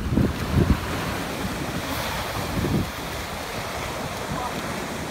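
Ocean surf breaking and washing up a sandy beach, with wind buffeting the microphone, gustiest in the first second.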